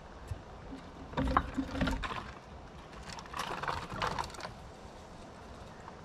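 Squirrels scrabbling and knocking about close to the camera: two bursts of irregular clicks, knocks and scraping, the first about a second in and the second about three seconds in.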